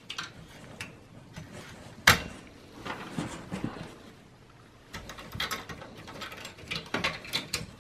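Plastic and metal clicks and knocks as a desktop PC's CPU heatsink and fan are unclipped and worked loose from the motherboard, with one sharp click about two seconds in and a run of smaller clicks near the end.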